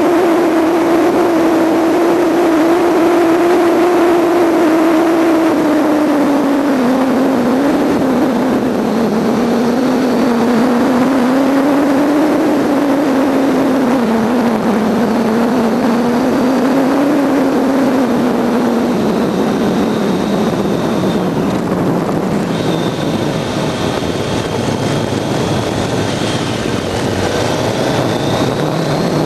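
Motorcycle engine running while riding through a series of bends, its note dipping and rising several times with engine speed. A steady rush of wind and road noise runs underneath and covers the engine note for the last third.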